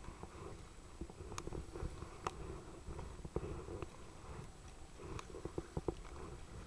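Wind buffeting a kayak-mounted camera's microphone with a steady low rumble, while choppy waves slap and splash against the kayak hull and paddle in irregular sharp little knocks.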